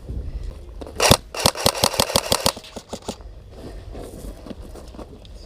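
Airsoft gun firing: a single sharp crack about a second in, then a rapid full-auto burst of about a dozen shots at roughly ten a second.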